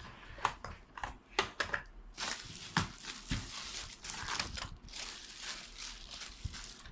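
Plastic packaging crinkling and rustling as small hard-plastic vacuum-cleaner attachments are handled, with a string of sharp clicks and knocks in the first few seconds.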